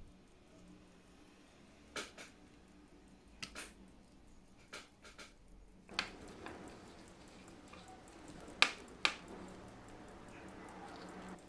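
Faint, scattered clicks and taps of steel tweezers and small metal parts as a Rolex 1556 wristwatch movement is taken apart, against a low room hiss. The two sharpest clicks come about half a second apart, a little past the middle.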